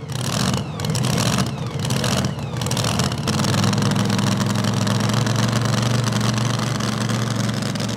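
Big-cubic-inch, alcohol-fuelled engine of a super modified two-wheel-drive pulling truck idling lumpily, uneven with a few brief dips in the first three seconds and then running steadily.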